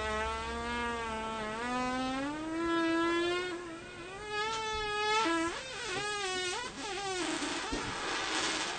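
A long, drawn-out fart with a steady buzzing pitch that rises slightly about two seconds in, then wavers and sputters from about four seconds, trailing off into an airy hiss near the end.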